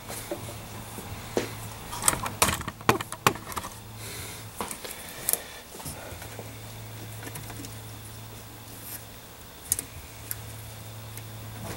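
Scattered light metallic clicks, knocks and rattles from hands working on a plasma cutter's sheet-metal casing and its internal parts, busiest in the first few seconds. Under them a low steady hum cuts in and out.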